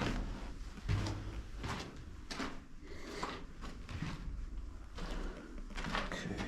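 Footsteps scuffing and crunching on a gritty concrete floor, about one step a second.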